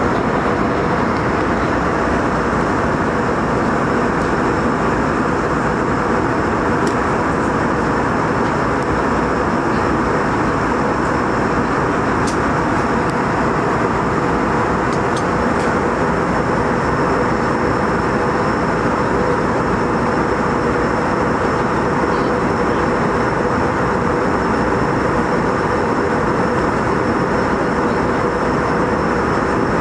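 Steady cabin noise of an Airbus A321 airliner in flight: engine and airflow noise, even in level, with a faint steady hum underneath.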